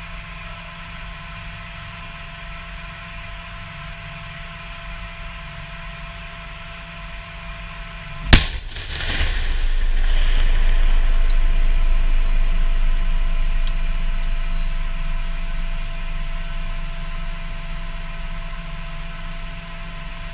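Steady vehicle engine hum with a high whine. About eight seconds in, a single sharp, very loud blast goes off, followed by a long deep rumble that swells and then slowly fades: a large explosion, the detonation of a mine-clearing line charge.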